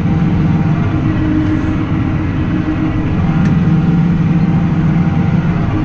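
Tractor engine running at a steady speed, a constant hum with no change in pitch.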